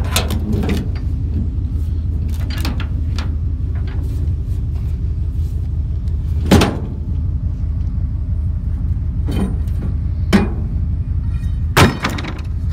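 A motor vehicle's steady low rumble, with several sharp knocks or clanks; the loudest comes about six and a half seconds in.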